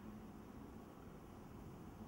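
Near silence: faint low hum and hiss of room tone.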